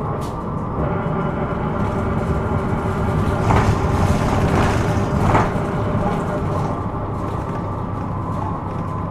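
Hino Rainbow II midsize bus heard from inside the cabin while under way: a steady engine hum with several held whining tones over road rumble. A louder rushing swell builds a few seconds in and fades again after about two seconds.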